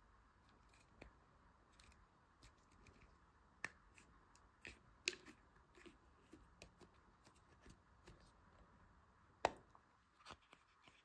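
Quiet scattered clicks and crackles as thumbnails press along the seam of a large hollow chocolate surprise egg, then a sharp crack near the end as the chocolate shell splits into two halves.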